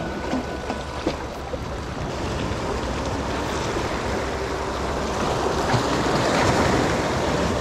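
Small waves washing and splashing against the stone blocks of a jetty, with wind on the microphone; the wash grows louder over the second half.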